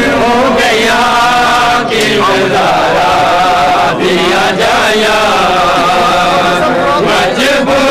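Loud vocal chanting: long, wavering held notes with short breaks for breath about two and four seconds in.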